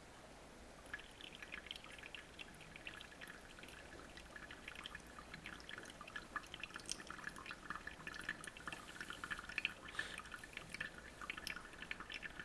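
Hot water poured in a thin stream from a stainless gooseneck coffee pot onto ground coffee in a paper-lined Hario V60 dripper: a soft, quiet trickle with a fine crackling patter of drips, starting about a second in.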